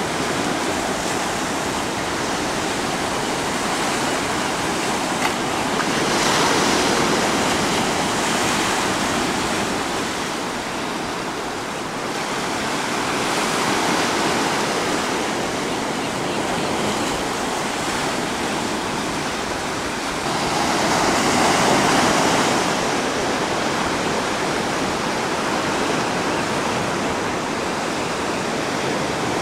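Ocean surf washing up a sandy beach among rocks: a steady rush of water that swells louder as waves come in, about six seconds in, again around fourteen seconds, and most strongly a little past twenty seconds.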